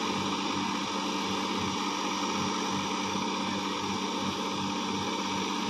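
Diesel tractor engines running steadily in a continuous drone, with a hiss of noise over it.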